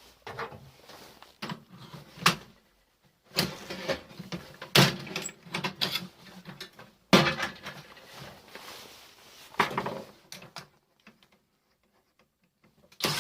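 Irregular clatter, knocks and scraping of metal parts being handled and pried apart while a microwave oven is dismantled for scrap. The sharpest knock comes about seven seconds in, and it falls quiet near the end.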